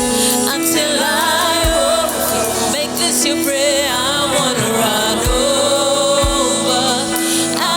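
Gospel music with singing over held keyboard chords and a kick drum beating about once a second.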